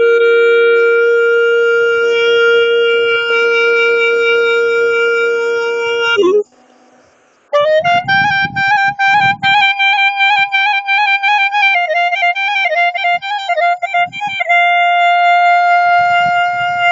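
Clarinet playing an Albanian kaba, a slow, improvised, lament-like solo. A long note is held for about six seconds and ends in a quick bend. After a short breath it slides up into a higher note, ornamented with trills in the middle, then settles on a held tone that falls away at the very end.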